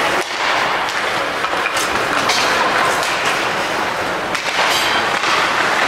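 Ice hockey game noise in a rink: a steady wash of crowd and skate noise with several sharp knocks of sticks, puck and boards.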